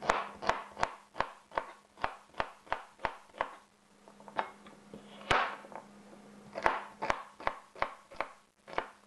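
Chef's knife slicing celery stalks on a plastic chopping board: crisp knocks of the blade on the board about three a second, a short pause with one longer stroke about halfway through, then steady chopping again.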